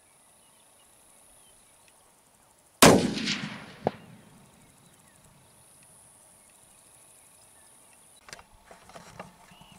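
A single rifle shot about three seconds in, its boom trailing off over about a second, then a short sharp crack about a second after the shot. A few faint clicks and knocks near the end.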